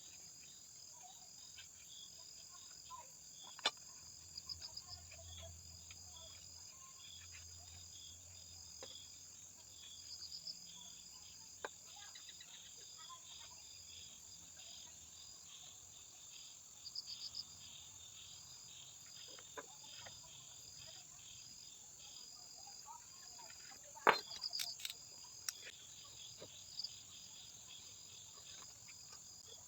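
Faint insects chirping steadily in the background, with repeating short high trills. Scattered light clicks and taps, the loudest cluster about 24 seconds in.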